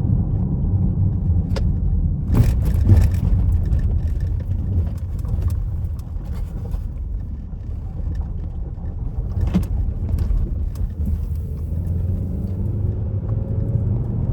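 Chevy Equinox 1.5L LFV turbo four-cylinder driving under load, a steady low engine and road rumble heard from inside the cabin, with a few brief knocks. The engine is misfiring on cylinder 4, caused by a cracked spark plug, with the check engine light flashing.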